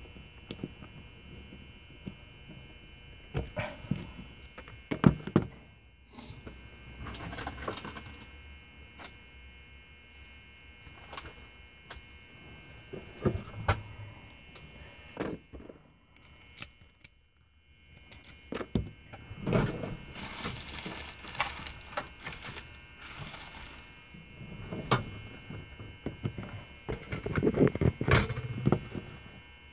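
Small metal parts of a Schlage knob lock cylinder and key being handled and worked with a tool, making scattered clicks, taps and scrapes as the retaining clip is taken off the back of the cylinder. A faint steady high tone runs underneath.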